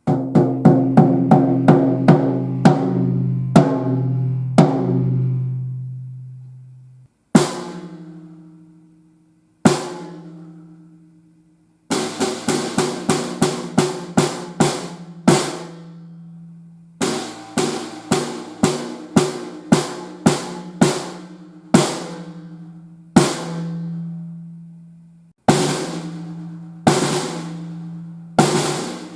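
Drums fitted with Evans Hydraulic heads being played. A quick run of strokes with a short, low, pitched ring opens the passage. Two single hits follow and ring down, then groups of rapid strokes separated by short pauses.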